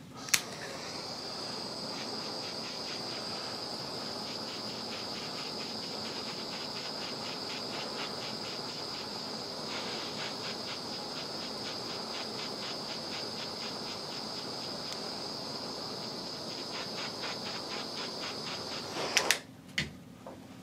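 Handheld butane torch burning with a steady hiss and a high whistling tone, heating a golf iron's hosel to loosen the epoxied shaft for removal. A sharp click sounds as it starts, and a few clicks come as it stops near the end.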